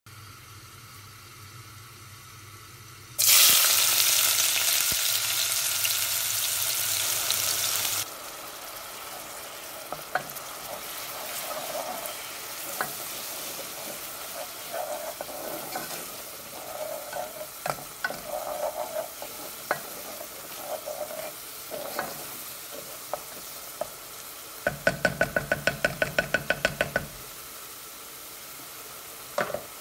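Frying in a steel pot: a sudden loud sizzle about three seconds in that eases off and drops after five seconds, then a lower steady sizzle as an onion and spice masala fries. A spoon scrapes and clicks against the pot while it is stirred, with a quick run of about five strokes a second near the end.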